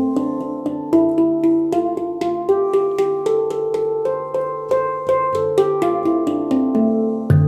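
A tuned stainless-steel drum played by hand: a melody of single struck notes, two to four a second, each ringing on and overlapping the next.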